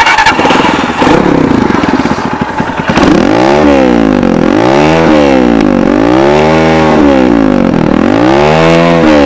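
Speeder NSX 165R motorcycle engine and exhaust starting up and running loud. About three seconds in the throttle is blipped repeatedly, the engine note rising and falling roughly every second and a half.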